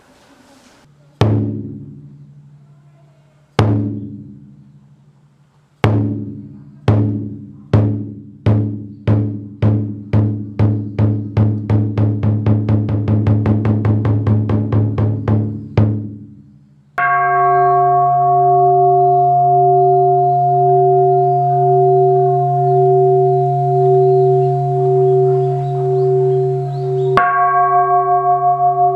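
A large temple drum struck in slow, widely spaced beats that speed up steadily into a fast roll and stop, the traditional opening of a goma fire ritual. Then a large temple bowl bell is struck and rings on with a slow pulsing beat, and is struck again near the end.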